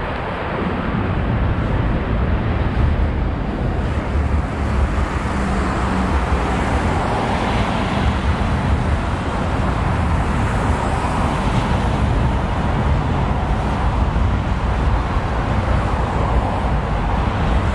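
Road traffic on a wide multi-lane city road: a steady noise of cars driving past close by, swelling and fading as vehicles go by.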